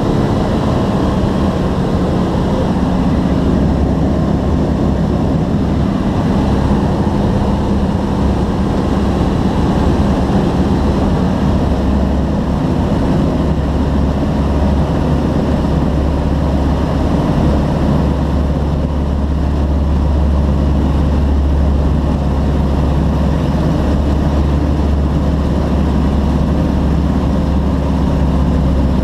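Floatplane's engine and propeller running steadily, heard from inside the cabin; the low drone grows stronger about twelve seconds in.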